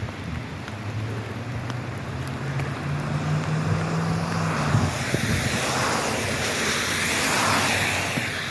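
A car on a wet road: a low engine note rises in pitch, then the hiss of tyres on wet pavement swells and eases off near the end.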